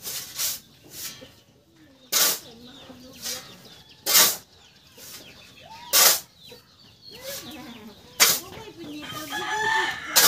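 Steel shovel scraping and scooping into a pile of sand and cement, a stroke about every two seconds, as the dry mix is turned by hand. Chickens cluck between the strokes and a rooster crows near the end.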